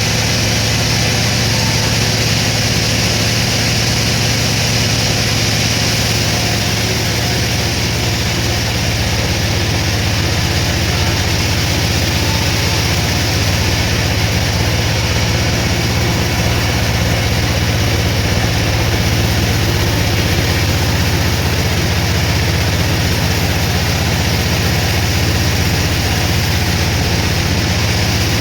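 Sawmill machinery running steadily: a constant low hum with a high hiss, unchanging throughout.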